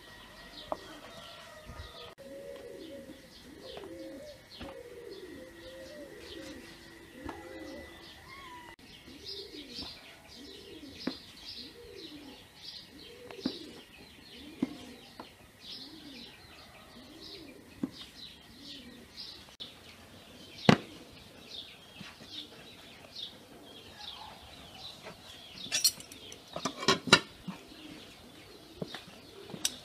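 Small birds chirping over lower, repeated cooing calls, with a few sharp knocks of a knife on a wooden cutting board while meat is cut. There is one louder knock about two-thirds in and a short clatter of knocks near the end as a plate is set down on the board.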